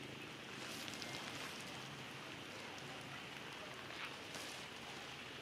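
Steady outdoor background hiss with a few scattered soft clicks and rustles.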